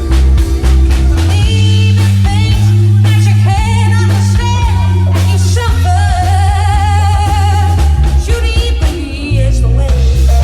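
Loud music with a singer: a sung melody with long, wavering held notes over a heavy, steady bass line.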